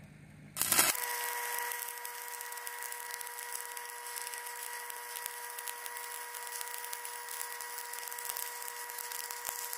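Stick-welding arc from a 1/8-inch electrode at about 125 amps, struck about half a second in and then burning steadily on an uphill pass on a pipe joint: a constant crackling hiss with a steady pitched hum beneath it.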